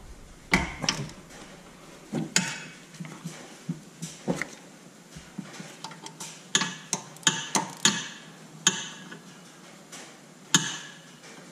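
Irregular metallic clicks and clinks of a socket ratchet on an extension being worked against a stiff, seized ABS sensor bolt, coming closer together and sharper a little past halfway.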